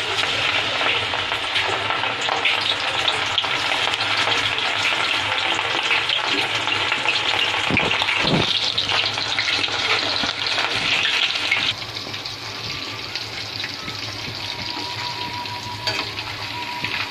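Masala-coated prawns deep-frying in hot oil in a steel kadai: a dense, crackling sizzle as the freshly added prawns hit the oil. The sizzle drops abruptly to a lower level a little under twelve seconds in, with a couple of soft knocks around eight seconds.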